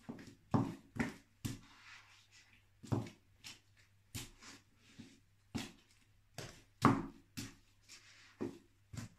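Block-heeled boots stepping on and crushing kiwi fruit on a hard floor. An irregular series of heel knocks and soft thuds, about two a second, with wet squishing of the mashed fruit under the soles.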